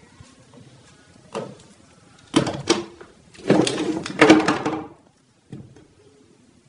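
Handling noise: a knock, then two loud bumps and a longer stretch of scuffing and rubbing that stops abruptly, with a small thump after it.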